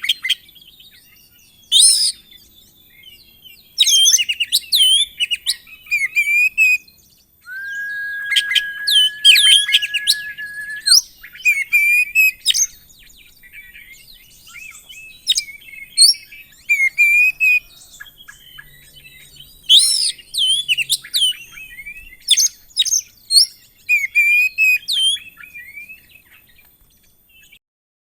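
Oriental magpie-robin (kacer) singing a loud, varied song of whistles, slurred notes and rapid chirps, with one long steady whistled note held for about three seconds near the middle.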